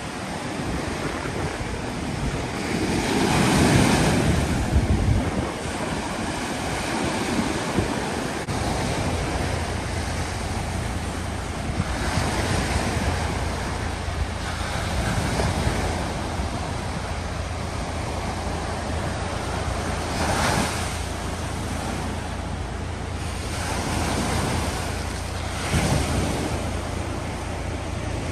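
Surf washing up a sandy beach, with swells of noise as waves break, the loudest a few seconds in. Wind rumbles on the microphone.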